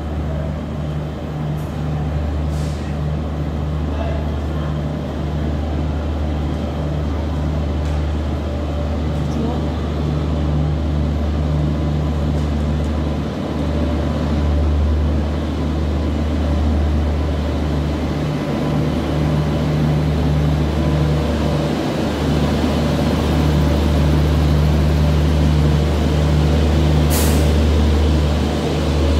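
WAP7 electric locomotive hauling a passenger train, running slowly alongside a platform with a steady low hum. The din grows louder as it draws close, and there is a brief hiss near the end.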